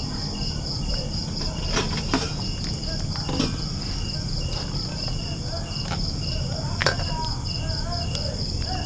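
Insects chirping steadily in two pulsing rhythms, a fast high one and a slower lower one. A few sharp clicks of a plastic ladle knocking against the pan come through as curry is scooped out, the loudest about seven seconds in.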